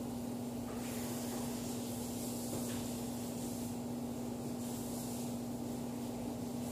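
Steady low hum, with a faint high hiss that comes and goes several times.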